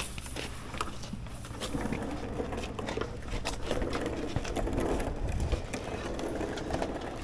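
Scattered light clicks and clatter of tools and parts being handled during under-vehicle wiring work.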